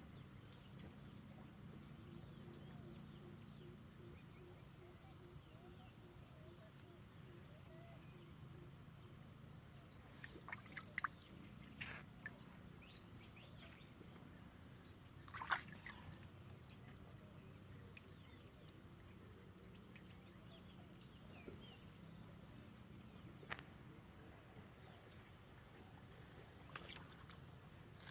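Near silence: faint steady outdoor background hum, broken by a few brief sharp sounds about ten to twelve seconds in, once near the middle, and once about two-thirds through.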